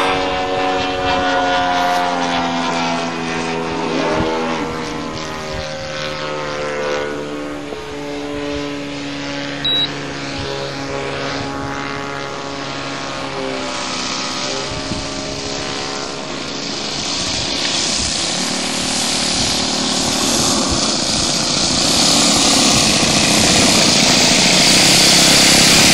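RC model Gee Bee airplane's engine and propeller running in flight, the pitch bending up and down as it flies around. In the second half a louder rushing noise builds up over the engine tone.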